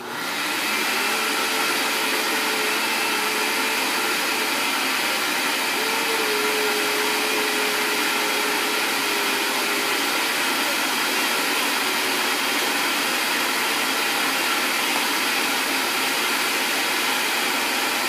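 Cheap countertop blender switched on abruptly and then running steadily, blending frozen strawberries and a frozen banana with apple juice into a smoothie.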